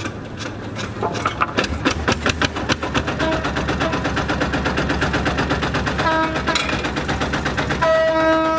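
Long-tail boat engine running with a rapid, even chugging that becomes distinct about a second in. A steady horn tone sounds briefly about six seconds in, then again, held and loudest, near the end.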